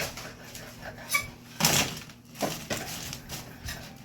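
Fries being put onto a baking tray: a few short bursts of rustling and clattering.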